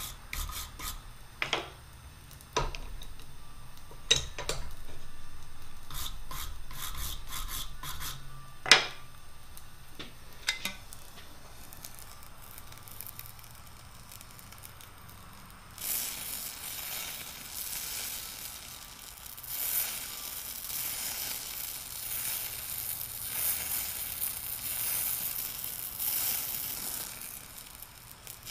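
A brush scraping over the hot steel shaft in a string of short strokes for the first ten seconds or so, then, from about halfway through, the steady hiss of an Eutalloy Ultra Jet oxy-acetylene powder torch playing over the shaft end as it lays down a metal overlay on the worn surface.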